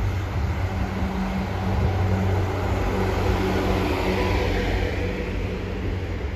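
South Western Railway Class 444 electric multiple unit arriving into the platform: a steady hum and the rumble of wheels on the rails as the coaches pass close by, a little louder from about two to four seconds in.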